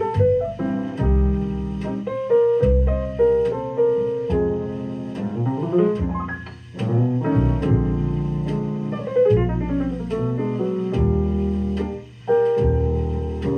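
Recorded piano music with low bass notes, a steady run of notes with short pauses, played back through a JBL C40 horn loudspeaker system driven by a Scott Type 272 valve amplifier.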